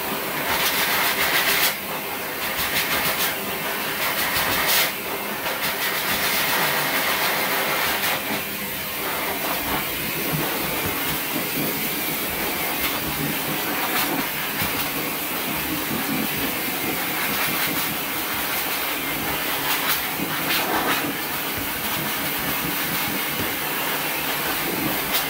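Forced-air dog grooming dryer blowing a loud, steady rush of air through its hose and nozzle onto the dog's coat. The level shifts a few times in the first five seconds as the nozzle is moved.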